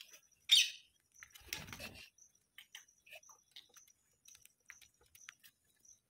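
Rose-ringed parakeets feeding: one sharp, loud call about half a second in, a brief flurry of wing flapping about a second later, then scattered small clicks of beaks pecking corn with faint chirps.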